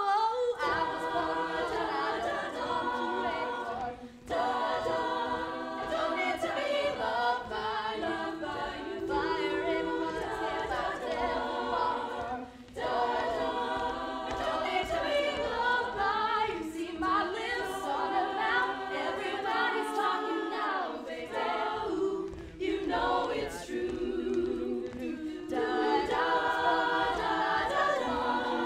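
All-female a cappella group singing a pop mashup through handheld microphones: a lead voice over layered close-harmony backing vocals, with a steady low beat underneath. The singing dips briefly twice.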